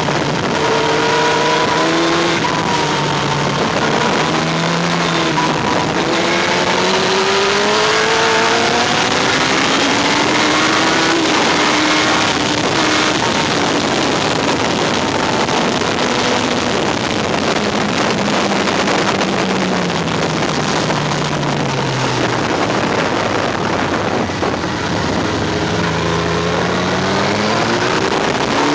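Yamaha R1 sportbike's inline-four engine heard from on board at speed, climbing in pitch through the gears with short drops at each upshift, easing off with a long fall in pitch about two-thirds of the way through, then pulling hard again. Steady wind rush on the microphone runs under it.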